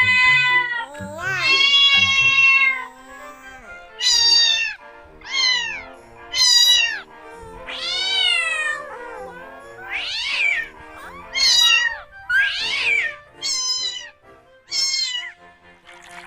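A series of about ten domestic cat meows, one after another, each rising and then falling in pitch, with background music beneath.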